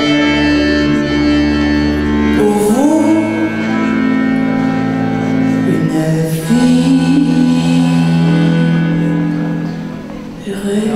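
Accordion playing the instrumental close of a song in long, held chords, with a few sliding notes about two and a half seconds in. It dies away near the end.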